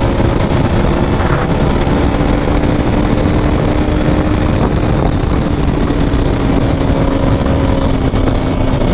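KTM sport bike's single-cylinder engine running at a steady highway cruise, heard from on board with heavy wind rumble on the microphone; its note drifts slightly lower in the second half.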